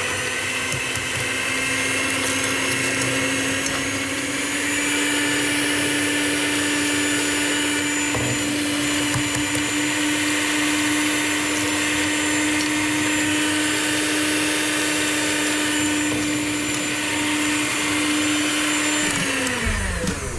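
Electric stand mixer running at a steady pitch as it beats cheesecake batter, then winding down near the end.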